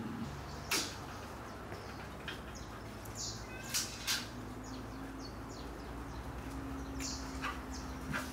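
Night ambience: short, high-pitched chirping calls from night animals repeat over a low steady hum. A few sharp clicks stand out, the loudest about a second in, then two close together in the middle and one near the end.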